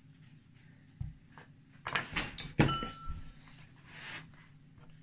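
Kitchen handling noise on a wooden cutting board: a dull thump about a second in, then a loud cluster of knocks and rustling with a brief ringing clink, and a softer rustle near the end.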